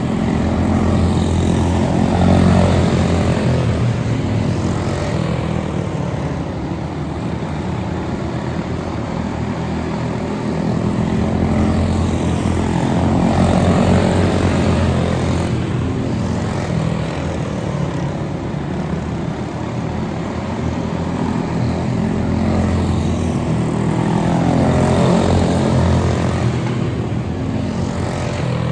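Propeller-driven model airplane flying circuits, its motor droning steadily and swelling with a rise and fall in pitch as it passes three times, about every eleven seconds.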